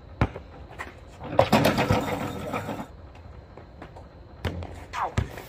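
A basketball bouncing on asphalt during play: one sharp bounce about a quarter-second in, a busier clatter of quick bounces and scuffs in the middle, and a few more knocks near the end.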